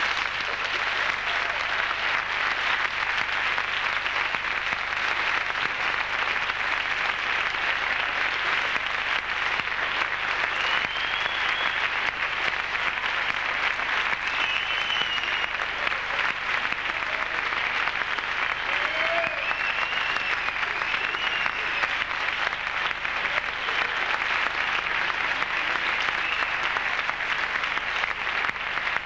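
Theatre audience applauding steadily at the end of a play, with a few short high-pitched calls rising over the clapping in the middle stretch.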